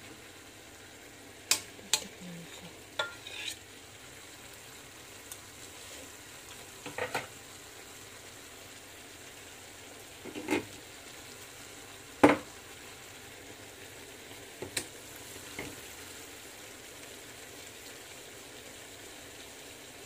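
A cooking utensil knocking and scraping against a stainless steel frying pan as yardlong beans and pork are stirred, in scattered clacks over a faint steady sizzle. The loudest clack comes about twelve seconds in.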